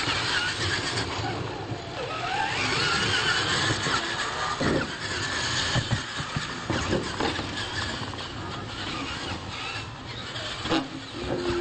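Radio-controlled monster trucks racing on dirt: their electric motors whine and rise and fall in pitch as the throttle comes on and off, over tyre and drivetrain noise. A few sharp thumps come between about four and seven seconds in, as the trucks hit the ramps and obstacles.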